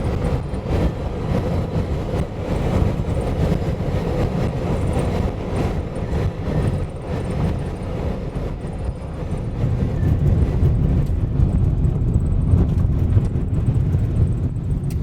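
Road noise from a vehicle being driven: a steady low rumble that swells slightly in the second half.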